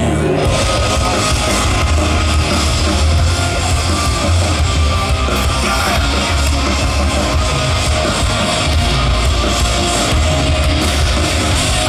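Live punk rock band playing loud, with distorted electric guitars and a singer's shouted vocals over a heavy low end.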